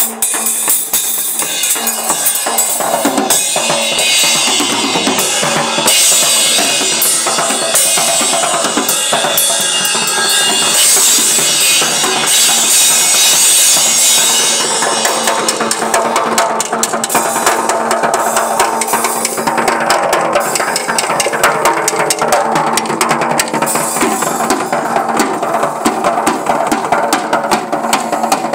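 Tama acoustic drum kit played in a dense, continuous groove: snare, bass drum and tom hits under cymbals. The cymbal wash is heaviest in the first half, then thins about halfway through as the playing moves more onto the drums.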